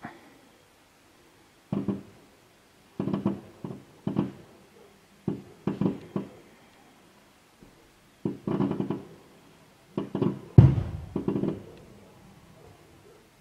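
Aerial fireworks shells bursting in a string of bangs that come in irregular clusters, each dying away quickly; the loudest and deepest bang comes about ten and a half seconds in.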